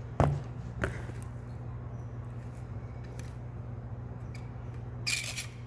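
A hand staple gun, just emptied of staples, being reloaded: one loud sharp click a quarter-second in and a softer click soon after, then a brief rustle near the end, over a steady low hum.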